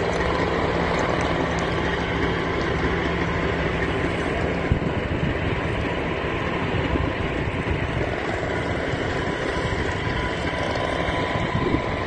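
A vehicle engine running steadily, a constant drone with a low hum that drops out a little before the middle.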